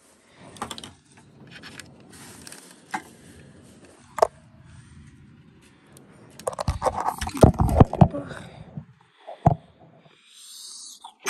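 Handling noise from the train set's plug, power pack and cardboard packaging: a few sharp clicks and knocks, then about two seconds of louder scraping and knocking a little after halfway.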